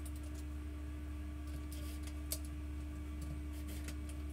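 Small clicks and taps of plastic toilet-seat fixing lugs being handled and positioned on the pan, with one sharper click about two seconds in, over a steady low hum.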